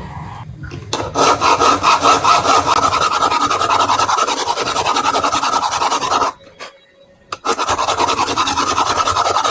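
A saw cutting a new landing-gear axle to length in quick, regular strokes. It stops about six seconds in and starts again about a second later.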